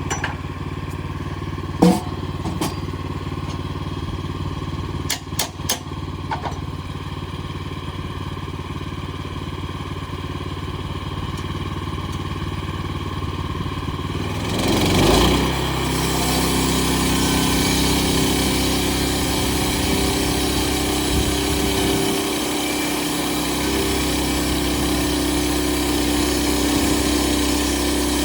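Petrol engine of a portable band sawmill running steadily, with a few sharp knocks in the first several seconds. About halfway through it revs up, and the mill runs louder and higher through the rest.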